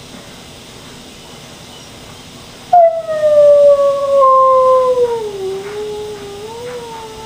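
An upset dog crying in one long howl that starts suddenly nearly three seconds in and slowly sinks in pitch, with a slight waver, as it goes on.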